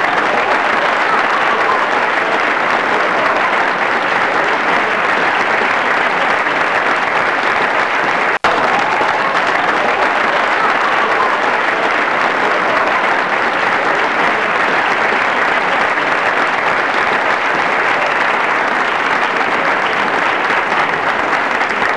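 Steady applause from a large audience, with a split-second break about eight seconds in.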